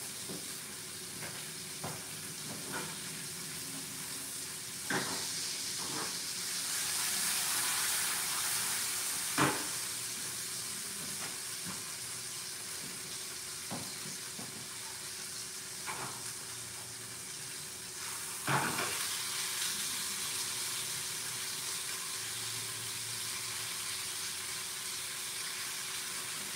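Food sizzling in a pan on a gas stove: a steady frying hiss that swells for a few seconds early on. It is broken by a few sharp knocks of a utensil or pan, the clearest about 5, 9 and 18 seconds in.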